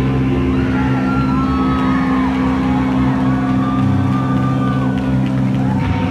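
Live rock from a bass-and-drums duo: a heavy bass guitar holds long low notes over the drums, loud and unbroken.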